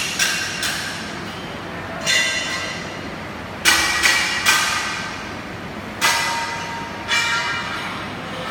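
Steel being struck, most likely by a hammer, about seven irregular clanks. Each clank rings on with a metallic tone and fades over about a second.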